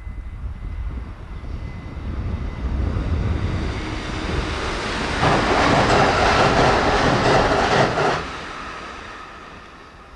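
A train passing at high speed: a rumble builds, then a loud rush of wheels on rails with rapid clatter for about three seconds from five seconds in. It drops off sharply as the train clears, leaving a fading tail.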